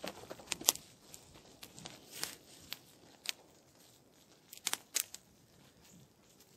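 Irregular crinkling and sharp crackles as tent fabric is handled at the door and dry leaves and snow crunch under a kneeling person.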